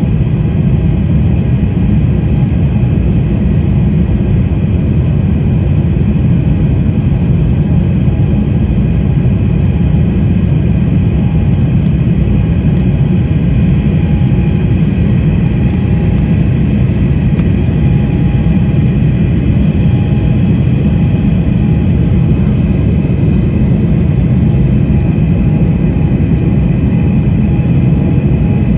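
Steady jet noise of an Embraer E190's General Electric CF34-10E turbofans and rushing air, heard inside the cabin: a heavy low hum with a few constant whining tones above it.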